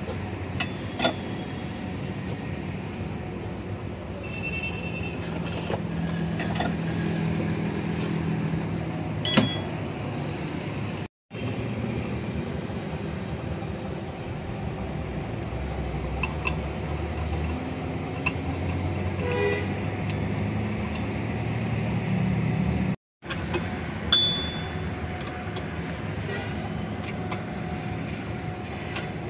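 Steady low background rumble with a few sharp metal clinks of hand tools against the steel ram and base of a hydraulic bottle jack, the loudest about nine seconds in. The rumble is broken by two short gaps of silence.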